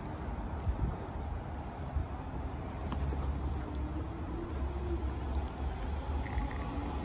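Crickets singing in one steady high tone, under a low rumble on the phone's microphone.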